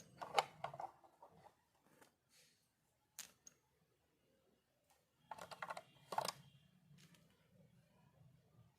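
Small toy pieces being handled: clusters of light clicks and clatter near the start and again past the middle, with a single sharp click in between.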